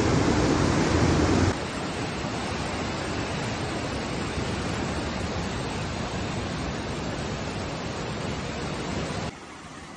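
Fast-flowing floodwater rushing in a steady wash of noise. It drops in level about a second and a half in and again near the end.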